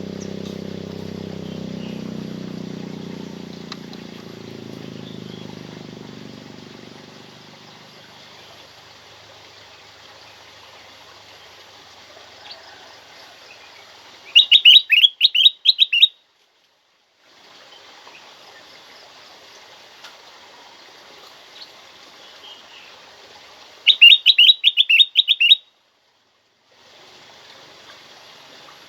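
Kutilang emas, a bulbul, calling loudly in two bursts of rapid, high chirping notes, about 14 and 24 seconds in, each lasting roughly two seconds. Between them there are faint scattered bird calls over a steady background hiss, and a low rumble fades out over the first several seconds.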